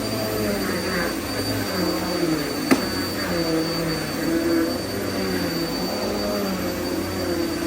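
Vacuum cleaner running steadily with a constant high-pitched motor whine, and one sharp click about two and a half seconds in.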